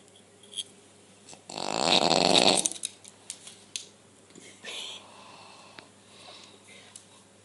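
A sleeping person snoring: one loud, rattling snore about a second and a half in, lasting about a second, then a much fainter breath near the middle.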